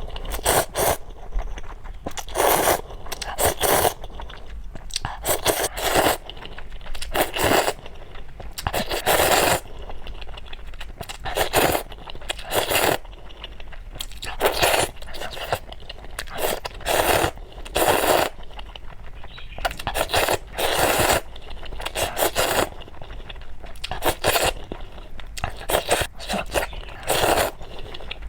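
Close-miked eating: crunchy bites and chewing, loud crackly crunches coming irregularly every second or so.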